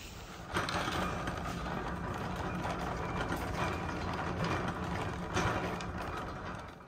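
Wire shopping cart being pushed over a concrete floor, its wheels and basket rattling steadily, starting about half a second in.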